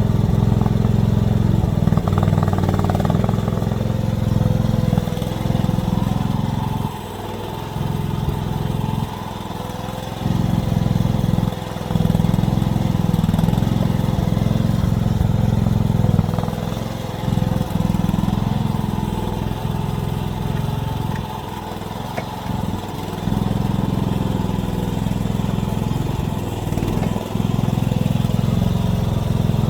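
AGT mini excavator engine running while the machine works, its sound dipping and coming back up every few seconds.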